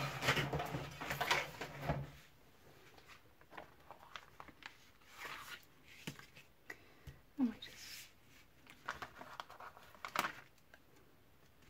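Paper and card being handled: a sheet of stickers and paper ephemera pieces rustling and sliding over a craft mat, loudest in the first two seconds, then scattered short rustles and light taps as pieces are picked over.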